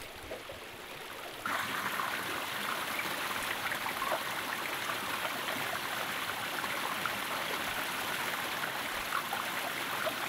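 Mountain stream running, a steady rush of water that becomes suddenly louder about a second and a half in.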